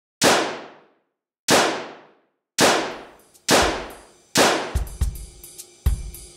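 Five sharp bangs, each fading quickly, coming a little closer together each time. From about the fourth bang, music with a deep bass and a drum beat comes in under them.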